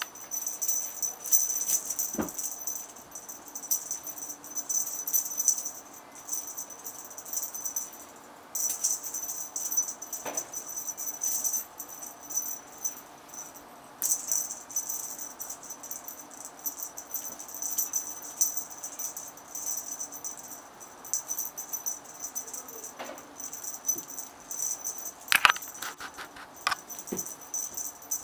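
Small bells on a feather wand cat toy jingling and rattling fast as the toy is shaken, stopping briefly about eight seconds in and again around fourteen seconds, with a few soft knocks.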